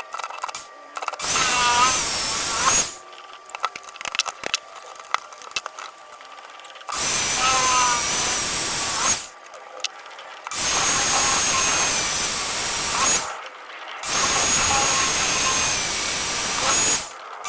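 A power tool motor run in four bursts of two to three seconds each, its pitch bending as it spins up at the start of each burst. Between the first and second bursts there are small clicks and taps.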